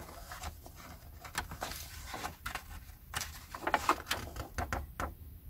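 Paper handling: magazine pages being turned and handled by hand, a run of short rustles and light taps, busiest in the second half.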